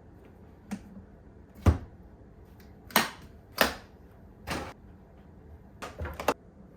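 About seven separate clicks and knocks from a Decca Sheldrake IV portable record player being handled after the record stops, such as the switch, tonearm, lid and case catches. The second knock is the loudest, with a dull thump, and the last three come in a quick run near the end.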